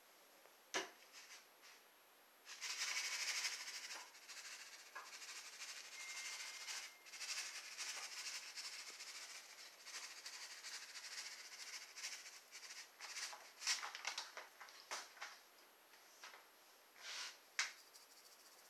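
Seasoning shaken out of spice shakers over raw chicken: a dry, rattling hiss of granules in uneven surges, starting a couple of seconds in, with a few sharp clicks and knocks of the containers.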